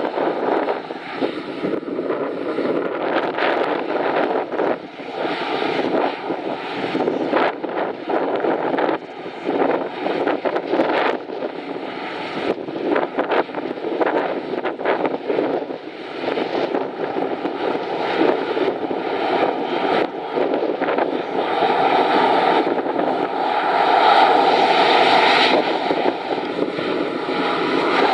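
A Boeing 737 MAX 8's CFM LEAP-1B turbofan engines at takeoff power: a loud, uneven jet rush that grows louder about three-quarters of the way through.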